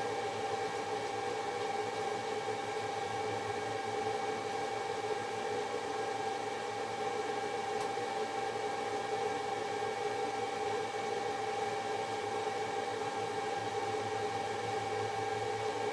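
An electric motor running steadily, an even whirring hum that holds one pitch throughout, as of a workshop power tool under steady load.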